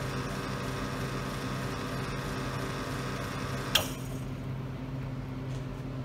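Commercial espresso machine's pump running with a steady hum as a shot pours, then switched off with a sharp click a little under four seconds in, ending the extraction; a lower hum carries on afterwards.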